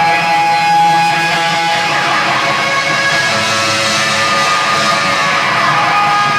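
Live rock band playing loud, with electric guitar strummed and chords held ringing.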